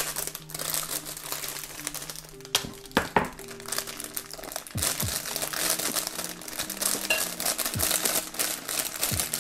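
Thin plastic packaging bag crinkling as it is opened and handled, with a few sharper clicks as small metal parts come out onto the cardboard box, over soft background music.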